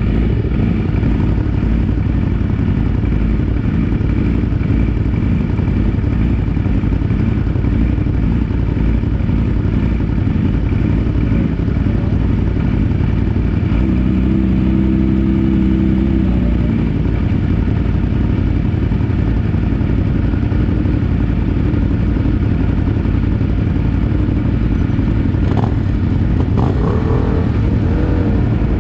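Sportbike engines idling steadily close by, with one engine note rising louder and holding for a couple of seconds about halfway through. A few light clicks near the end.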